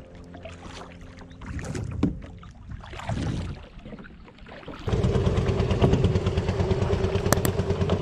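Soft irregular splashes of a paddle working the water of a small rowed boat. About five seconds in, a small engine cuts in abruptly, much louder, and runs steadily with a fast, even pulse.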